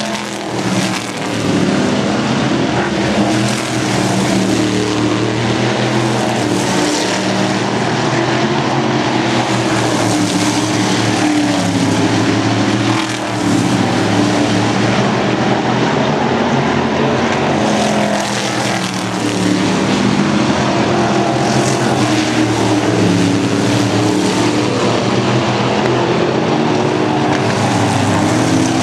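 Several oval-track race cars lapping at speed, their engines running continuously with overlapping pitches. The sound swells and fades every few seconds as cars go by.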